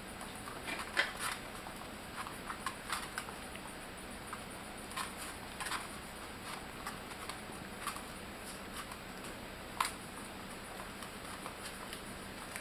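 Young puppies moving about, their small claws and paws making irregular light taps and scrabbling clicks, with one sharper tap about a second in and another near the end.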